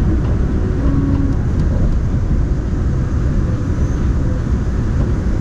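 Cabin noise inside a moving Daegu Metro Line 3 monorail car: the steady low rumble of the rubber-tyred train running along its elevated concrete guideway.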